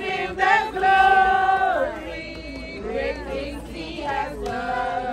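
Mourners singing together unaccompanied, a slow song with long held notes.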